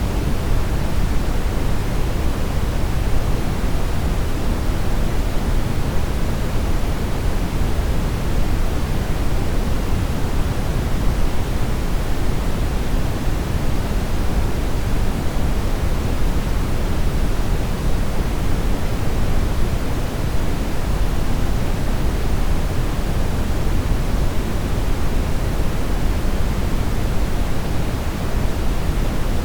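Television static: a steady, loud hiss of noise, heavier in the low end, as from a TV receiving no signal.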